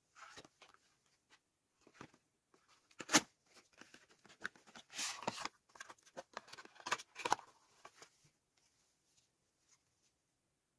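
Cardboard product boxes handled and opened by hand: scattered rustles, taps and scrapes of card, with one sharp click about three seconds in and a longer sliding scrape around five seconds in, as a plastic tube is taken out. The handling stops after about eight seconds.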